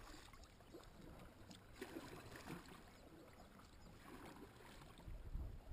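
Near silence: faint water lapping against a kayak's plastic hull, with a few soft knocks and a low rumble near the end.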